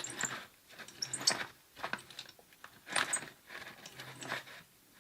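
Tubing cutter being turned around a thin copper pipe, its cutting wheel scraping in short strokes about once a second. The strokes stop near the end. The wheel is wandering on a slight diagonal and starting to thread the pipe instead of cutting in one spot.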